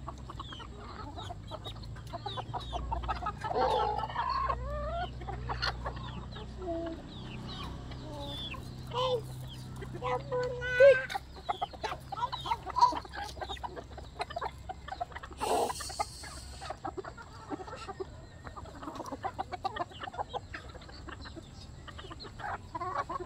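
Flock of free-range hens and roosters clucking while they peck at feed on the ground, a steady scatter of short clucks and calls, the loudest about eleven seconds in.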